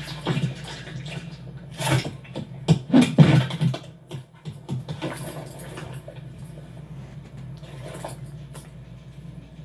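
Animated-film foley with the dialogue removed: scuffling, rustling hits over a steady low hum. The loudest cluster of hits comes about three seconds in, with fainter ones later.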